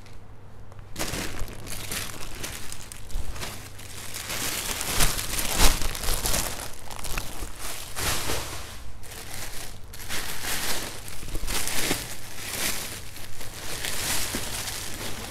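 Clear plastic bags crinkling and rustling in an irregular run of crackles as a pair of shoes is dug out of them, starting about a second in.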